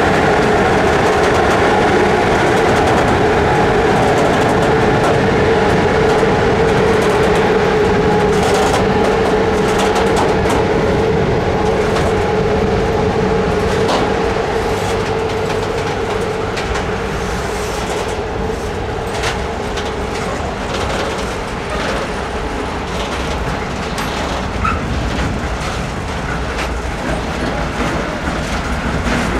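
Freight train of tank wagons rolling past close by: a steady rumble of steel wheels on rail, with a humming tone that fades away over the first half, and irregular clicks and clacks of wheels over rail joints from about eight seconds in.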